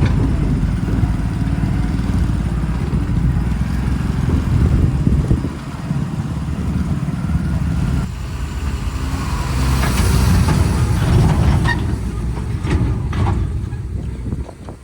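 Heavy diesel engine of a JCB 4DX backhoe loader running under load while digging and loading soil, with a few sharp knocks in the second half.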